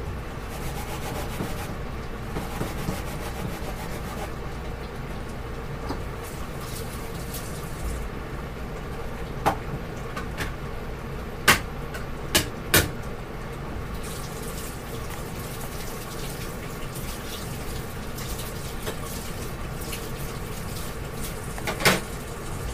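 Hard plastic toy kitchen parts clicking and knocking as they are handled and fitted together: four sharp clicks in the middle and one near the end, over a steady background hiss and hum.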